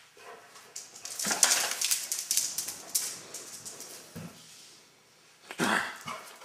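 Basset hound at play: a dense burst of scuffling and rustling clicks for about two seconds, then a short bark near the end.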